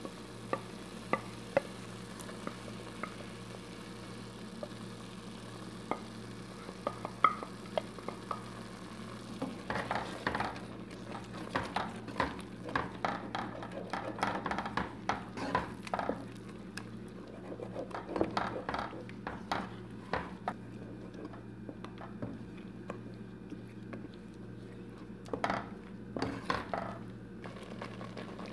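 A wooden spoon stirring a thick, creamy curry sauce in a cooking pot, scraping and knocking against the pot in quick strokes. The stirring comes in bouts from about a third of the way in, with a few scattered sharp clicks before it, over a steady low hum.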